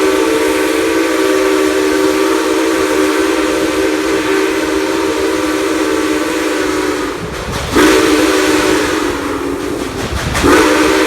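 Steam locomotive NKP 765's chime whistle blowing loudly in long blasts: it breaks off about seven seconds in, sounds again for a couple of seconds, and starts a third blast near the end. Each blast slides up slightly in pitch as it opens.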